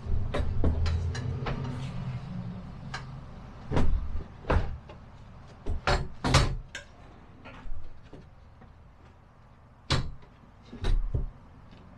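Irregular knocks and clatters of a glass-topped two-burner gas hob being shifted and seated into its cutout in a wooden worktop, with a low rumble in the first couple of seconds.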